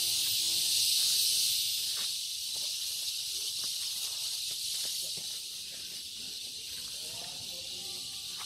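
Steady high-pitched insect drone, easing down slightly a few seconds in, with faint footsteps on the dirt trail.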